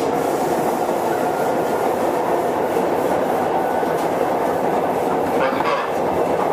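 Running sound inside a motor car of a Sotetsu 7000 series electric train with a Hitachi GTO-VVVF inverter, travelling between stations: a steady rumble of wheels and running gear. A few clacks from the wheels over rail joints come near the end.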